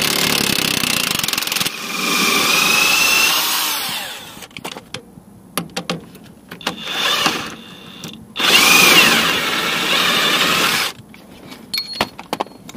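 Cordless DeWalt 20V XR impact wrench hammering on a rusty suspension bolt in bursts: a long run of about four seconds at the start, a short blip a little after the middle, and another run of about two and a half seconds later. Its motor whine rises and falls in pitch, and a few sharp metal clicks come near the end.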